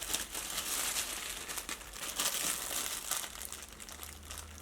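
Packaging rustling and crinkling with small irregular crackles as the boxed bandsaw is moved about.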